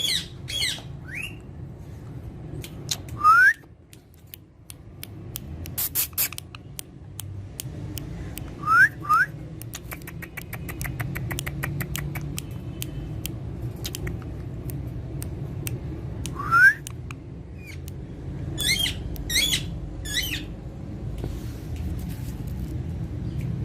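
Pet parrot making short warbling chirps in quick clusters and, between them, a few single rising whistles, with scattered faint clicks.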